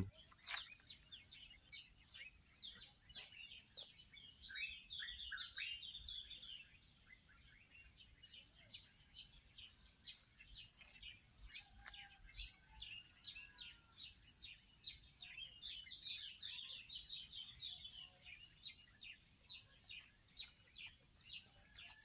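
Many small songbirds of several species chirping and calling at once, a busy run of short high chirps with a few falling phrases about four to six seconds in. A steady, high pulsing trill runs underneath throughout.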